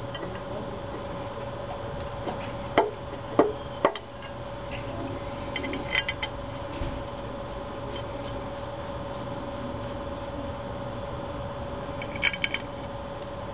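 Steel flywheel clanking against the crankshaft flange of a Chevy 350 small-block as it is fitted by hand: three sharp metal knocks a few seconds in, then lighter knocks. Near the end there is a quick cluster of small metal clinks as flywheel bolts are handled. A steady hum runs underneath.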